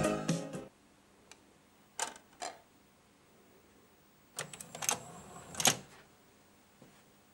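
Music stops within the first second. Then come a few separate mechanical clicks, and around the middle a short run of clicks and clatter, such as a compact disc player's buttons and disc mechanism make.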